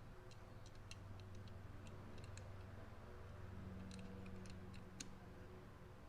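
Faint, irregular light clicks and ticks, a couple of dozen of them in scattered clusters, over a low steady hum.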